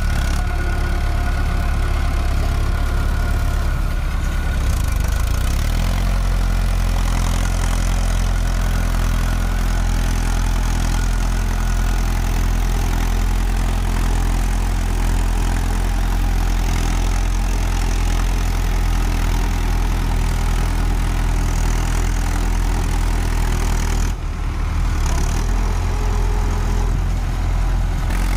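Mahindra Arjun 555 tractor's four-cylinder diesel engine running loud and steady under load as it hauls a loaded trolley through deep mud. The engine note changes about six seconds in and dips briefly near the end.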